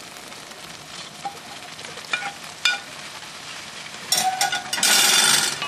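Wooden spatula scraping boiled cassava leaves off a plate into a steel wok of simmering tempoyak paste, with a few light scrapes and taps. About four seconds in, the spatula stirs the wet leaves through the hot paste, and a loud sizzling and stirring noise peaks near the end.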